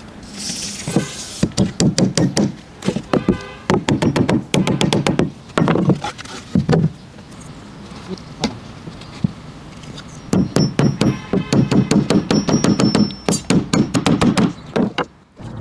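Hammer tapping a small pin into the top corner of an elm cabinet door: runs of quick, light strikes, several a second, broken by short pauses, with the longest run near the end.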